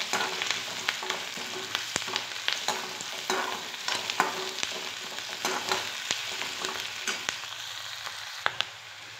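Chopped onion, capsicum and carrot sizzling in hot oil in a metal kadhai, with a perforated metal spatula scraping and clicking against the pan as they are stir-fried. The frying grows quieter near the end.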